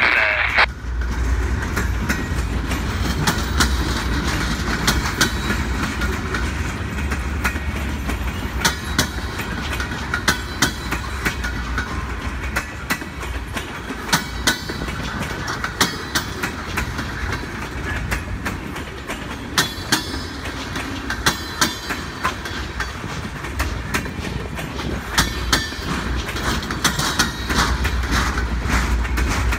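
Train of empty flatcars rolling past on jointed rail: the wheels clack over the rail joints in quick groups of clicks, over a steady low rumble.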